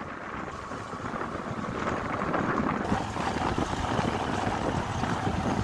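Motorcycle riding along a rough dirt track: engine running under wind buffeting the microphone, getting louder about two seconds in.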